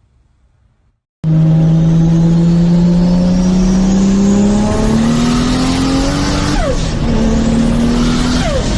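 Turbocharged car engine accelerating hard, cutting in suddenly about a second in: the engine note climbs steadily with a rising turbo whine above it, drops back at two gear changes, and a quick falling whistle comes as the throttle lifts at each change, the turbo spooling down.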